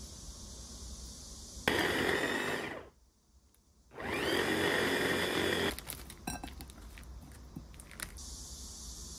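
Electric hand blender's chopper attachment running in two short pulses of about a second each, chopping meat; the motor's whine rises as it spins up and falls away as it stops. A few light clicks follow.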